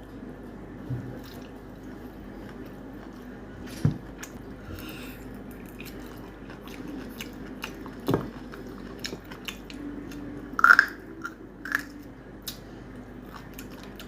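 Close-miked chewing and wet mouth sounds of someone eating mutton curry with rice. A few sharper clicks and knocks are scattered through it, the loudest about eleven seconds in.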